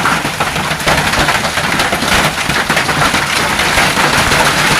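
Hail and heavy rain pelting down hard, a loud dense clatter of countless small impacts.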